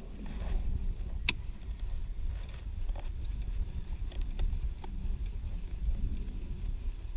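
Low, steady outdoor rumble, with one sharp click about a second in and a few faint ticks after it.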